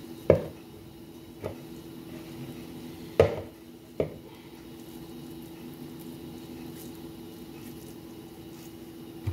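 Kitchen handling sounds while stuffing is rolled into balls by hand: a few dull knocks, the loudest just after the start and about three seconds in, over a steady low hum.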